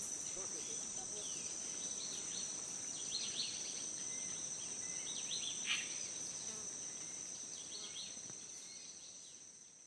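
Amazon rainforest ambience: a steady high-pitched insect drone with birds calling in short falling chirps, loudest about three and six seconds in. It fades out over the last couple of seconds.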